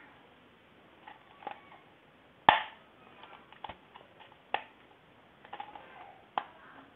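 Sharp plastic clicks and knocks from a Nova hair dryer's plastic housing being pried and pulled apart, about seven in all, the loudest about two and a half seconds in.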